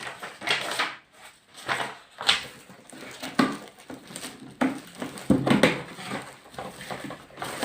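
Hair dryer packaging and accessories being handled: a string of rustles, knocks and clatters, with a short pitched sound about five seconds in.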